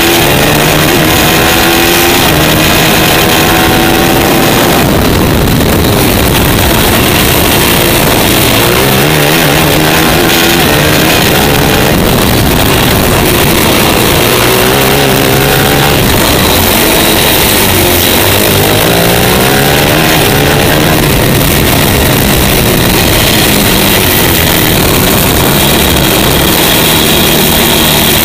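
TM 450 single-cylinder four-stroke superkart engine heard onboard at racing speed, loud, its pitch repeatedly rising under acceleration and falling off into the corners.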